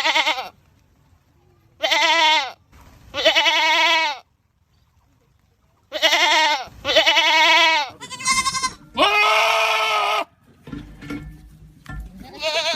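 Goats screaming: a string of about eight loud, quavering bleats, each half a second to a second long, separated by short pauses, with a quieter gap shortly before the last one.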